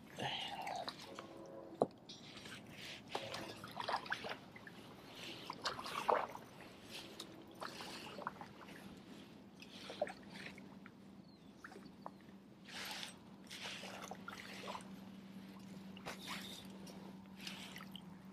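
Kayak paddle strokes through shallow, duckweed-covered marsh water: irregular splashes, sloshing and drips as the blades dip and lift. A faint steady hum comes in about halfway through.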